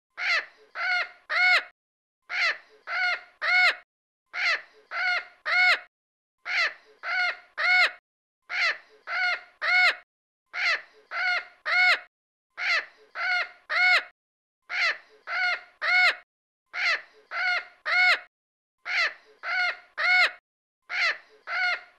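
Crow cawing: a phrase of four caws, each rising then falling in pitch, repeated over and over, about one phrase every two seconds.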